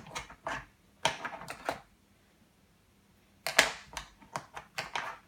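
Light clicks and taps of small repair tools being handled and set down while opening a phone, in two clusters with a short quiet gap in the middle.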